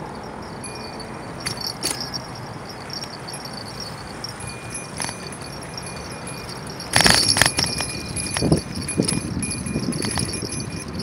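A bicycle rolling with light metallic rattling and jingling, turning into heavier clattering over bumps from about seven seconds in.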